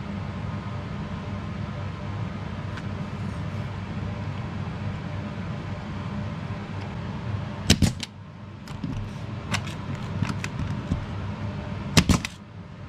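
Nail gun firing nails through wooden trim strips to pin down rattan panels: two sharp, loud shots about four seconds apart, each a quick double crack, with fainter clicks and taps between them. A steady low hum runs underneath.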